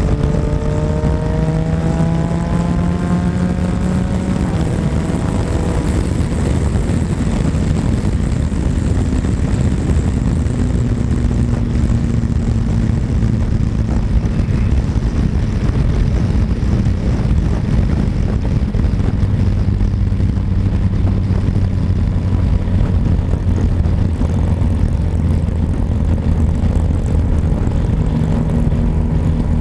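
Yamaha Tracer 900 GT's 847 cc inline-three engine under way at road speed, its pitch rising as it accelerates for the first few seconds, then holding steady. Heavy wind rush on the microphone runs under it.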